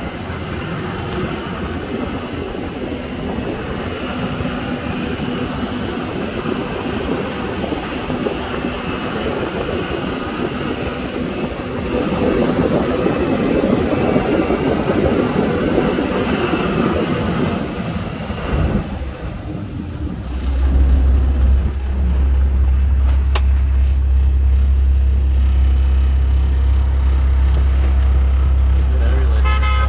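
Amphibious duck boat running along with its engine and a rattling, rumbling ride noise. About two-thirds of the way through, a strong, steady deep hum takes over.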